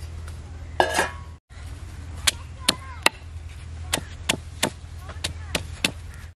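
A round hand-held stone pounding red onions and garlic on a stone slab, making sharp, even knocks about two to three times a second. A brief louder clatter comes about a second in.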